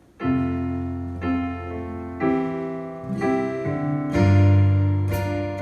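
Piano or keyboard playing slow sustained chords, a new chord about every second, starting a moment in: the introduction to a worship song.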